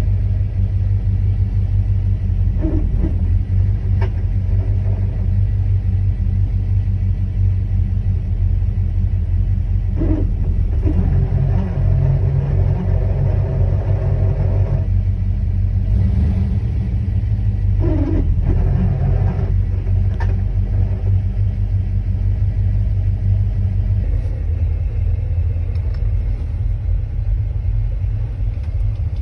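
Camaro Z28 V8 idling steadily, with irregular noises from the clutch area coming and going over it a few times. These are the random noises heard while the clutch pedal is held in, traced to a dried-out greased pilot bearing grabbing the input shaft.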